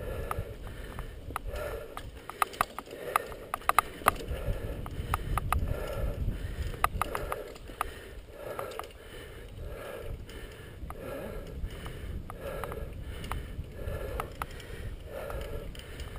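Mountain biker's hard, regular breathing, a breath about every second and a bit, over the rumble of tyres and wind on the trail. Sharp rattling clicks from the bike over rough ground come in a cluster in the first half.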